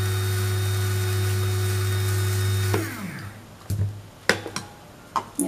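Small electric spice grinder running steadily on roasted whole garam masala spices, a second run to grind the cardamom husks finer. About three seconds in it is switched off and the motor winds down with a falling pitch, followed by a few clicks and knocks.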